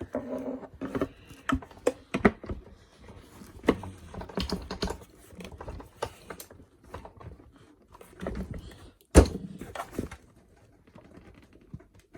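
Hands fitting plastic parts of a Kirby G4 vacuum cleaner back together: a run of irregular clicks, taps and rattles, with one loud knock about nine seconds in.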